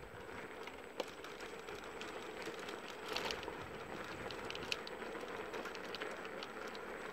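Self-balancing two-wheeled scooter rolling along rough concrete: steady tyre noise with a faint steady hum, and a few small clicks and knocks, one about a second in and a louder cluster around three seconds.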